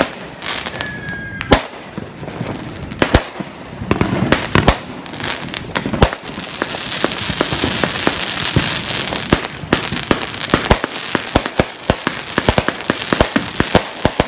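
A 49-shot Brothers consumer fireworks cake firing, its shots going off one after another with sharp reports. From about six seconds in it builds into a dense crackling finale, with quick pops thickening toward the end.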